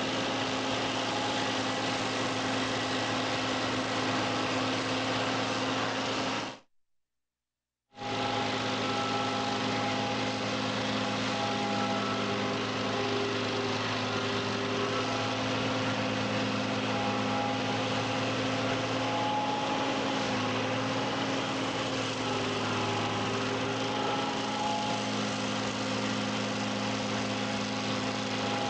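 Tractor engine running steadily, driving a Riko PRO 150 stump grinder. The sound cuts out to silence for about a second and a half some seven seconds in, then carries on unchanged.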